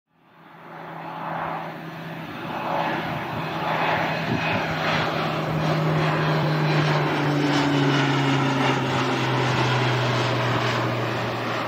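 Jet engines of an Airbus A320neo (CFM LEAP-1A turbofans) running at power as it departs, heard from a distance. The rumble fades in over the first couple of seconds and then holds steady, with a low droning tone that slowly drops in pitch.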